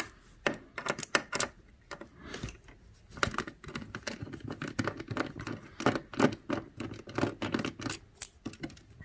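Hand screwdriver backing a small screw out of a TV's sheet-metal back frame: a run of irregular small clicks and scrapes of the bit turning in the screw head against the metal, coming in clusters.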